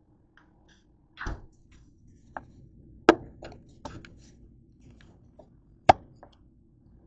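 Handling knocks and clicks as a camera is carried and set down on a kitchen counter: a low thump about a second in, then scattered sharp knocks, the loudest about three and six seconds in.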